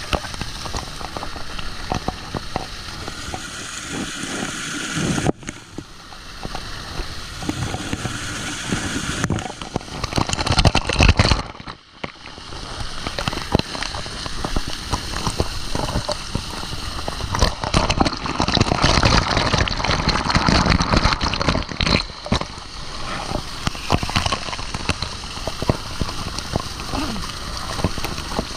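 Water splashing and sloshing with a crackling texture, with a louder burst of low rumbling about ten seconds in.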